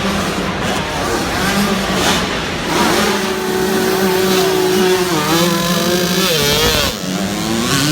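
Several dirt bike engines running and revving, their pitch rising and falling as the throttles open and close.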